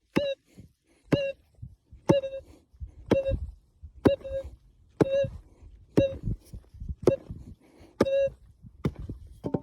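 Minelab metal detector giving a short beep about once a second, nine times, as the coil is swung back and forth over a target, with rustling from the ground and footing between the beeps.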